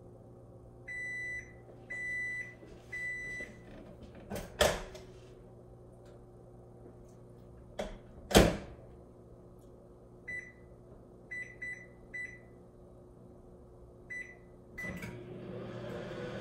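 Electronic appliance beeps: three long, even beeps, then two loud clunks a few seconds apart, then a string of short single beeps. Near the end a steady running hum starts up.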